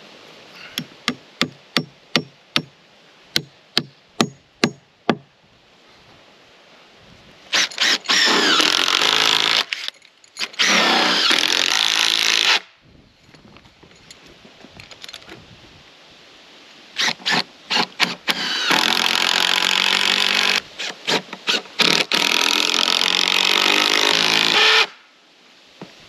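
A claw hammer strikes the rough-cut timber about ten times, roughly two blows a second. Then a cordless drill runs in bursts: two long runs, then a few short blips and one long run near the end.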